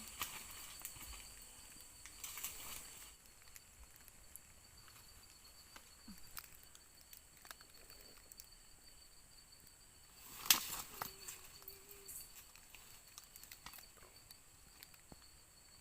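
A steady high-pitched night chorus of crickets, with rustling in the first few seconds and scattered small clicks. About ten and a half seconds in there is one sharp, loud snap.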